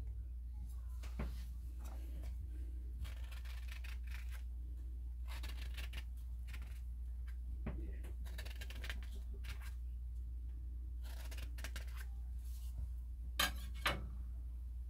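A halved pomegranate handled by hand: irregular short scratchy crackles and tearing sounds as the fruit's rind and seeds are worked, the strongest near the end, over a steady low hum.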